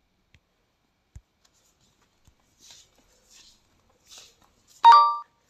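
A phone's short electronic alert chime, several pitches together, sounding suddenly near the end and fading out within about half a second: the warning tone a notification reader plays before reading a message aloud with text-to-speech. Before it, a few faint soft rustling taps.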